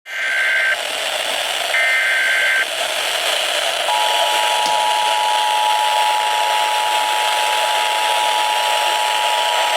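Emergency Alert System broadcast over FM radio, under a loud steady hiss: two short bursts of the high warbling data header, then about four seconds in the steady two-tone EAS attention signal (853 and 960 Hz) starts and holds. This signals the start of a Child Abduction Emergency (AMBER Alert).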